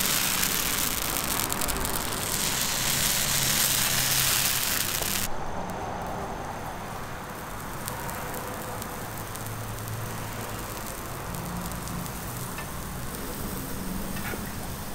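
Crepe batter sizzling on a hot flat griddle: a loud steady hiss that drops suddenly to a quieter crackling sizzle about five seconds in.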